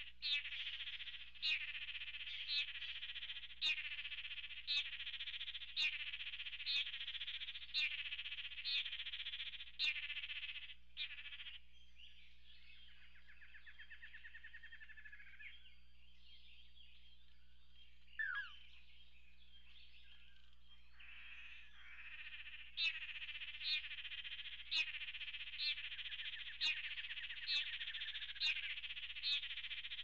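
Male lance-tailed manakins giving buzzy display calls about once a second during their paired dance. They break off for several seconds in the middle, when only softer calls and one short falling note are heard.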